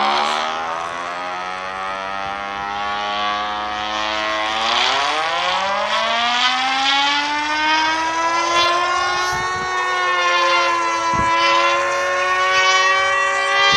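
Emergency alarm siren sounding: a low droning tone with many overtones that rises in pitch about four to five seconds in and keeps climbing slowly, with a second gliding tone layered over it.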